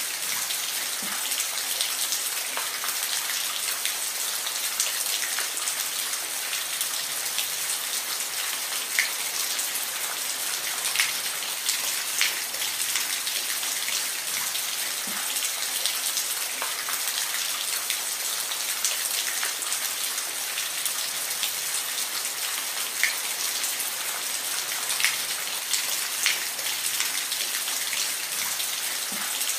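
Steady rain falling, an even hiss with scattered louder individual drops ticking on a surface.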